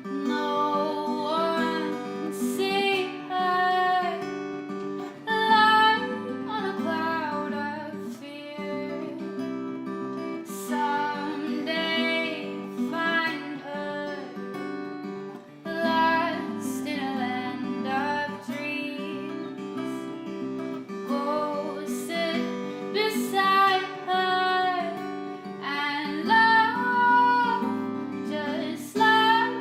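A solo woman singing live to acoustic guitar, her voice over sustained guitar chords.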